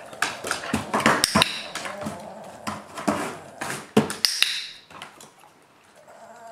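A dog's claws clicking and tapping on a hardwood floor and on a cardboard box as it steps onto it. A training clicker snaps with a short high ring about a second in and again about four seconds in, marking the paw placed on the box.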